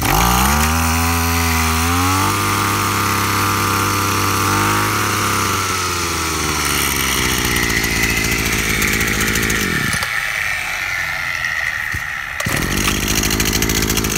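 Small engine of a used Japanese brush cutter starting suddenly and running. It revs up over the first two seconds and eases back about halfway. It drops to a lighter run near two-thirds of the way through, then revs up again near the end.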